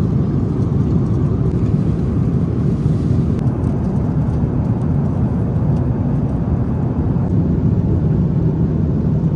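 Airliner engine and airflow noise heard inside the passenger cabin: a loud, steady low rumble with no change in pitch.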